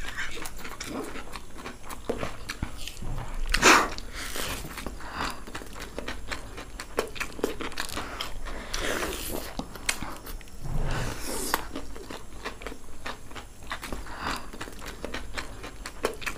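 Close-up chewing, biting and smacking of two people eating chow mein noodles with their mouths straight from the plates, a busy run of short wet clicks and crunches. One louder burst of noise comes about three and a half seconds in.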